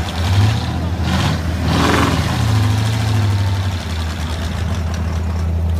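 Modified off-road truck's engine working hard as the truck pushes through a deep mud pit: the revs rise and fall sharply about a second in, then hold at a steady high drone.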